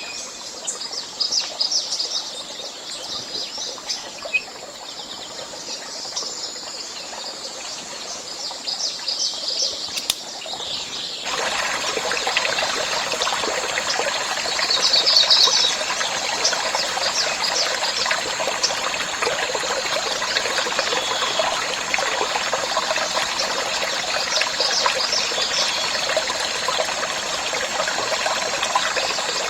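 Birds chirping in short scattered bursts; about a third of the way in, a steady rush of running water starts abruptly and carries on under the birdsong.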